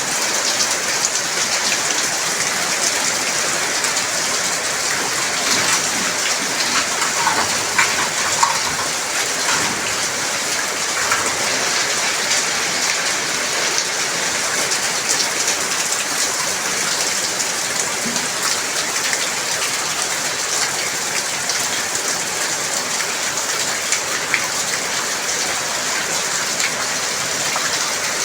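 Heavy rain falling steadily, with individual drops striking close by as fine crackling ticks over the even hiss of the downpour.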